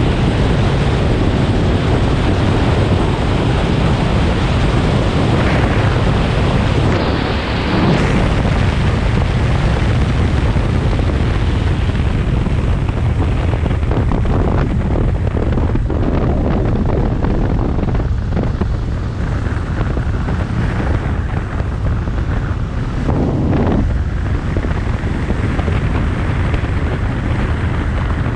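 Motorcycle riding at road speed: loud, steady wind rush on the microphone over the engine and tyre noise.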